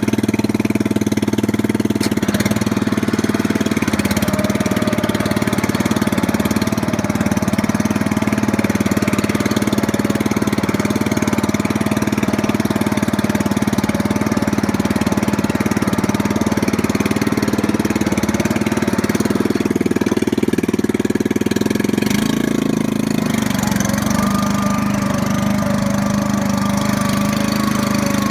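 Five-horsepower Briggs & Stratton single-cylinder engine of a rear-engine riding mower running steadily after a cold start; its tone shifts about 22 seconds in.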